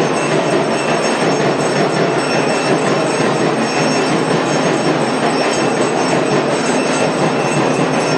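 Loud, steady, dense din of aarti percussion: clanging metal bells and gongs with drumming, running without a break.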